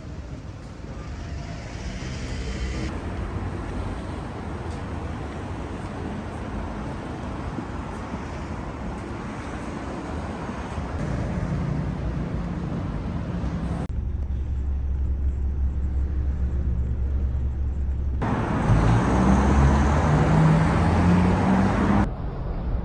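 Road traffic: vehicles running along a street with a steady low rumble. Near the end a vehicle's engine rises in pitch as it pulls away.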